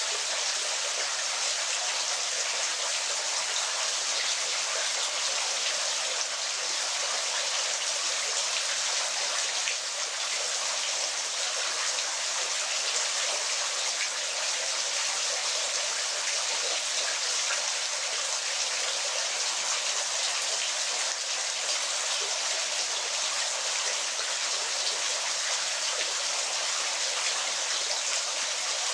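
Waterfall: a steady, unbroken rush of falling water, a dense even hiss with almost no low rumble.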